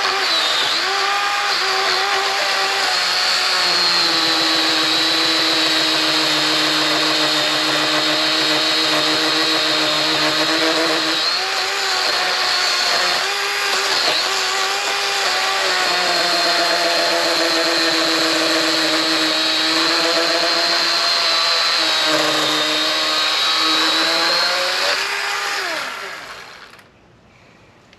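Small electric chainsaw running and cutting through a tree trunk, its motor whine dipping in pitch now and then as it bogs under load. Near the end the motor winds down and stops.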